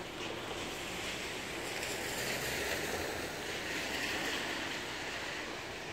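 Steady hiss of a rain-soaked street, rain and tyres on wet road, swelling through the middle and easing near the end.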